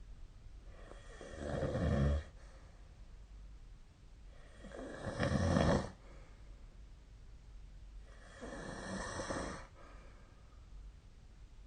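A person snoring in their sleep: two loud, rumbling snores about three and a half seconds apart, each cutting off sharply, then a softer, breathier snore.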